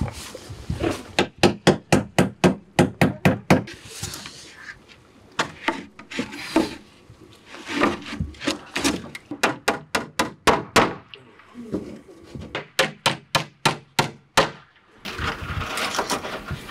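Hammer striking wood, driving nails: runs of quick, sharp blows, about four a second, broken by short pauses. Near the end the blows give way to a steady hiss.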